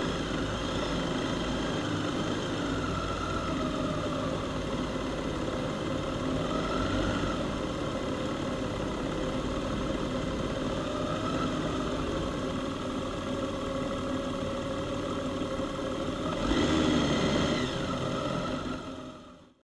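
Honda Gold Wing flat-six motorcycle engines running steadily at parking-lot speed, with small rises and falls in pitch. A louder swell about three-quarters of the way through, then the sound fades out near the end.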